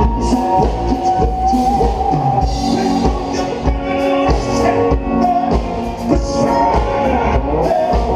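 Loud rock music with electric guitar and drums playing over a loudspeaker.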